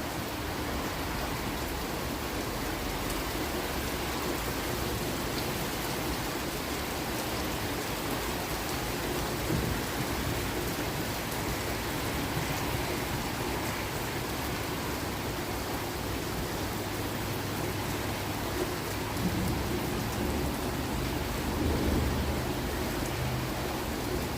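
Heavy rain pouring steadily, with low thunder rumbling in the second half, loudest near the end.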